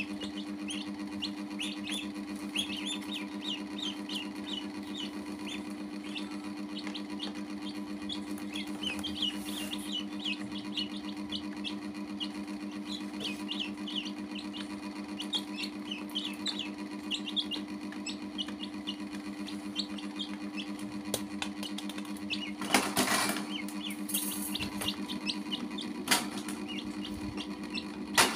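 Chicks and a duckling peeping, a fast stream of short high chirps that thins out later on, over a steady low hum. About 22 seconds in comes a brief rustling scuffle, and a sharp knock near the end.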